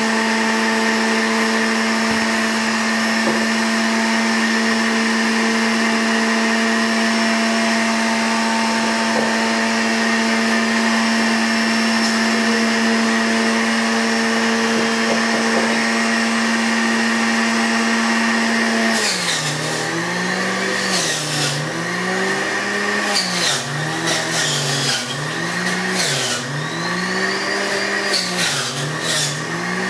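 Electric juicer running carrot juice: the motor first runs with a steady whine. About 19 seconds in, carrots go down the chute, and the motor's pitch drops and recovers again and again, roughly every second and a half, with a crunchy grinding as each carrot is pressed through.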